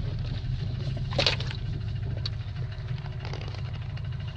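Small boat motor running steadily with a low, even hum. A brief sharp knock or rattle comes about a second in.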